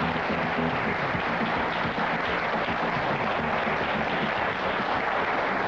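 Studio audience applauding steadily, with the show's theme music fading out in the first second or two.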